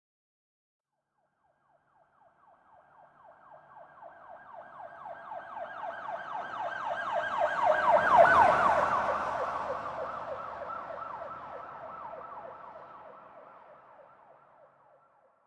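Police car siren in a fast yelp, rapid rising whoops several times a second. It grows steadily louder, peaks about halfway with a low rumble of the vehicle at its closest, then fades away as the car passes.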